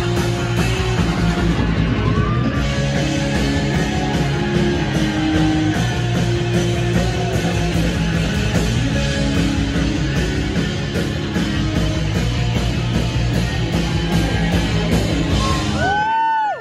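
Live punk rock band playing loud, with electric guitar and a steady drum beat; the song stops abruptly near the end.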